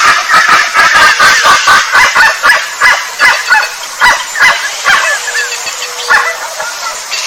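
Animal calls in a rapid series of short, loud notes, dense at first and thinning out after about four seconds, with a brief steady low tone about five seconds in.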